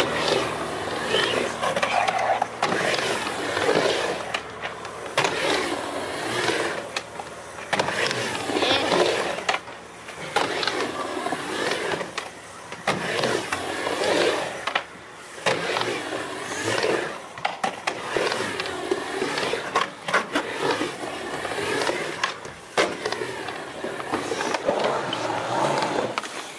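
Skateboard wheels rolling back and forth across a halfpipe, the roll swelling and fading about every two seconds as the skater rides from wall to wall, with occasional sharp knocks of the board on the ramp and coping.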